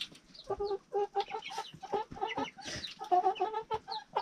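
Chickens clucking in quick runs of short calls, with high thin peeps among them.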